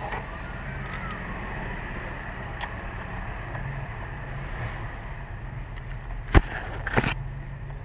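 Two sharp metallic knocks about half a second apart near the end, typical of hand tools (socket, ratchet) striking metal, over a steady low hum.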